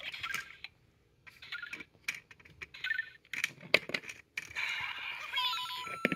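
Lego Super Mario interactive figure playing short electronic bleeps and chirps through its small speaker, mixed with clicks and knocks of plastic Lego pieces. The sound cuts out briefly about a second in and again past the middle, and near the end comes a run of quick sliding tones and steady beeps.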